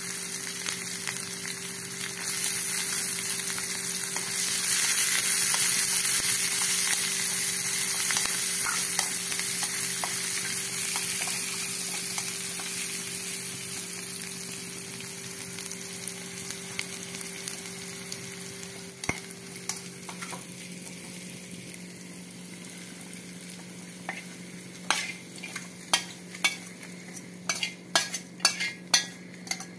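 Small onions, garlic and curry leaves sizzling and being stirred in hot oil in a steel kadai. The sizzle is loudest early on and slowly dies down. Near the end comes a run of sharp metallic clicks and scrapes of a spoon against the steel pan as the tempering is tipped into the curry, over a steady low hum.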